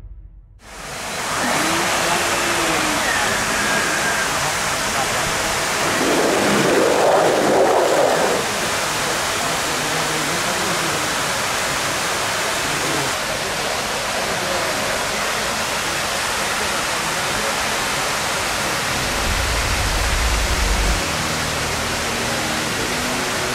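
Steady rushing of falling water, loud and even, with faint voices now and then and a low rumble a little before the end.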